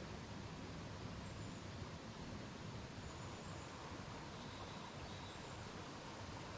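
Steady outdoor background noise, an even hiss, with a few faint, short high chirps.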